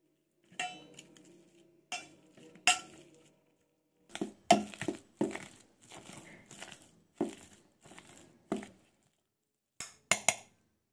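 Perforated steel potato masher mashing boiled potatoes in a stainless steel bowl, its head knocking and clinking against the bowl about a dozen times at uneven intervals.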